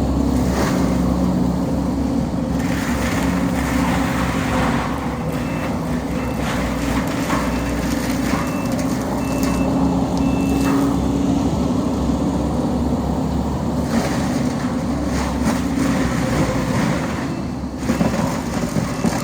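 Heavy equipment engine running steadily under load. A reversing alarm beeps about once a second for several seconds in the middle.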